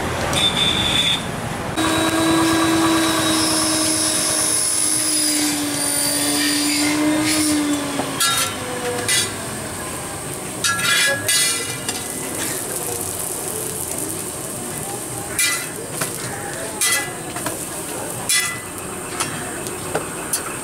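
A metal spatula knocks and scrapes on a large iron tawa as a paratha is flipped and pressed, with sharp clacks every second or so through the second half, over steady street noise. In the first half a steady tone holds for about six seconds, sagging slightly in pitch near its end.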